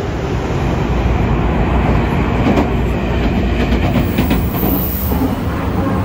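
Commuter train running, heard from inside the car: a steady low rumble with a cluster of wheel clacks over rail joints around the middle.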